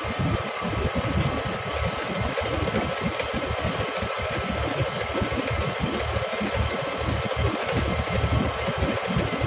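An engine running steadily, with a fast uneven flutter in its low end and a thin steady whine above it.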